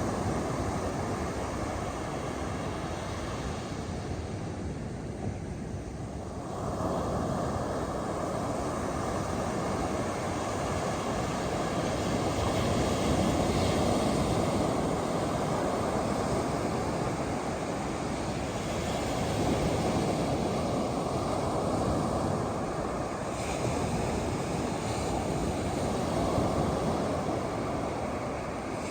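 Ocean surf breaking on a beach: a steady wash of noise that swells and ebbs every several seconds as waves come in.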